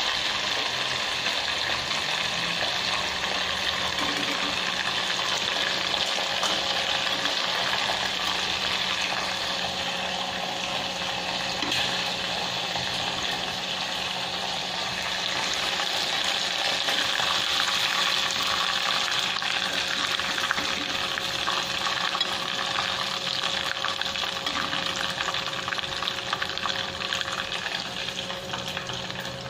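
Chicken liver pieces deep-frying in a saucepan of hot oil on a gas burner: a steady, even sizzle.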